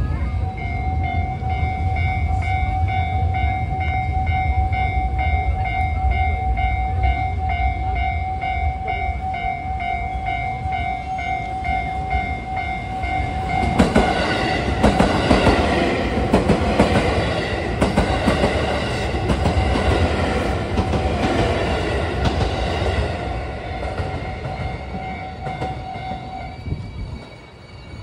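A Japanese level-crossing warning bell rings in a fast, steady, repeating ding and stops near the end. About halfway through, a Haruka limited express train runs past close by for about ten seconds, its wheels clattering over the rails.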